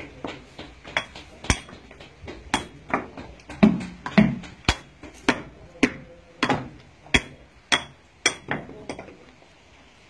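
A mason's hammer striking stone blocks to trim and shape them, sharp ringing knocks about every half second that stop shortly before the end.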